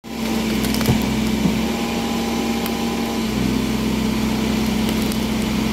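Diesel engines running steadily at idle: a light truck loaded with oil palm fruit, bogged in mud, and a backhoe loader beside it.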